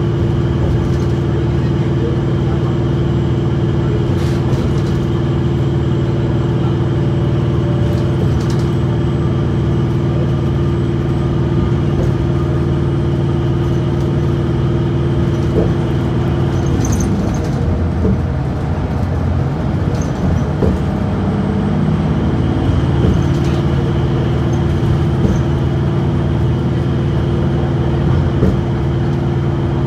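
Steady hum of a 2017 New Flyer XDE40 diesel-electric hybrid bus driving, heard from inside, with road noise. About halfway through, the drive's tone drops in pitch as the bus slows, then rises back as it picks up speed again. There are a few light rattles.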